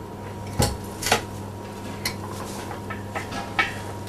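A few sharp metal clinks and knocks, the loudest about half a second in, over a steady low hum, as metal parts and tools are handled while an engine is worked out on a hoist.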